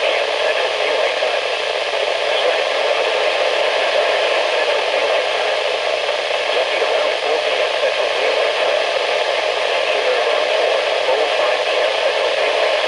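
Steady static hiss from a weather radio receiver tuned to NOAA Weather Radio station KJY83.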